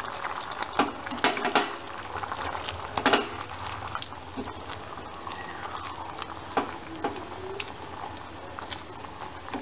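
Chicken and masala paste sizzling and bubbling in a pan while a spatula stirs it, with scrapes and clicks of the spatula against the pan, more of them in the first few seconds.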